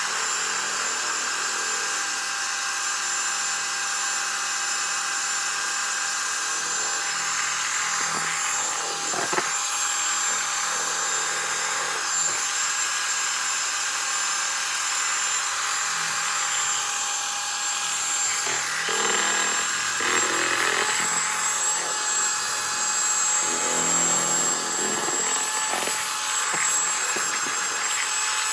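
Electric hand mixer running steadily with a high whine, its beaters churning thick cream in a plastic tub.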